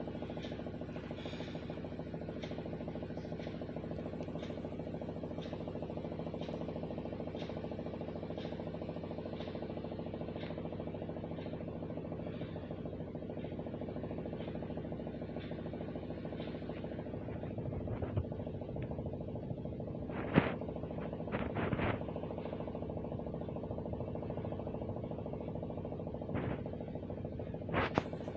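A steady mechanical hum of a running motor, with faint ticking about once a second for the first dozen seconds. A few sharp clicks and knocks come in the second half, the loudest about two-thirds of the way through.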